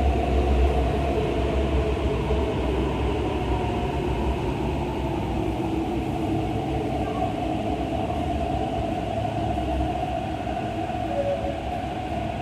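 MTR East Rail Line electric train pulling in and slowing to a stop at the platform: a steady low rumble with a running hum that gradually fades as the train halts.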